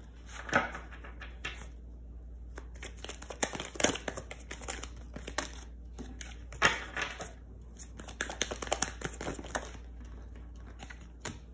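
Tarot cards being handled and laid on a table: a scatter of short rustles, flicks and taps of card stock, with the sharpest snaps about half a second in and again a little past halfway.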